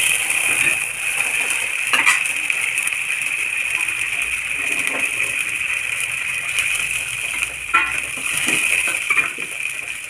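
Steady hiss of a wok of soaked dried-mango (amchur) liquid heating on a gas stove, with a few light metal clinks about two seconds in and near the end.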